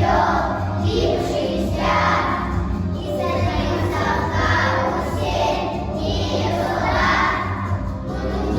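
A group of young children singing together with musical accompaniment, in phrases of about a second each.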